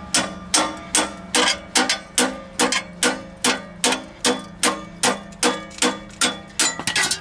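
Hammer blows on a chisel driven into a rusted exhaust pipe stub at a catalytic converter outlet. The sharp metallic strikes come steadily, about two and a half a second, each ringing briefly, with a quick flurry of lighter taps near the end. The pipe is being chiseled so it caves in and can be pulled out without harming the converter.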